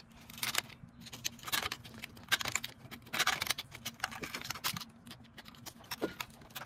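Steel hand tool clicking and scraping against the drum-in-hat parking-brake shoe hardware of a rear wheel knuckle, in short irregular metallic clicks as a spring piece is worked loose.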